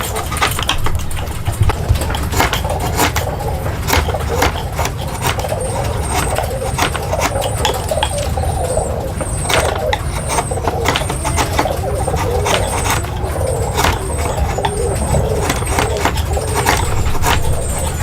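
Construction-site noise: a steady low machine rumble under frequent sharp knocks and clicks, with a faint high chirp repeating about every 0.7 seconds from about five seconds in.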